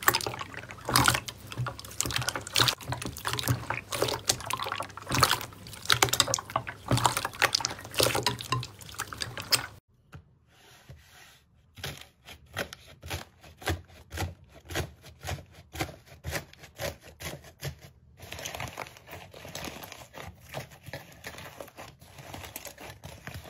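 Hands pressing and squeezing clear, glossy slime in a glass bowl: a dense run of clicks and squishes. About ten seconds in it changes to quieter, more separate crackles and pops as a thick pink slime is poked and pulled apart.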